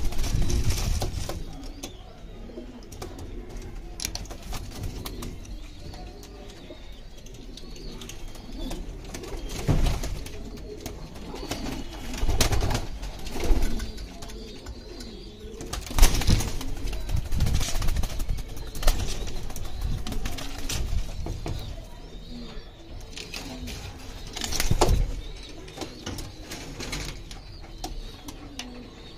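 Domestic pigeons cooing in a loft, low repeated coos, with a few louder knocks and rustles about a third of the way in, around the middle and near the end.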